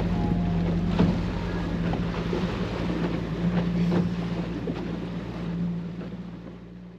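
Small fishing boat's engine running steadily underway, with wind and rushing water and a few sharp knocks, the strongest about a second in; it all fades out near the end.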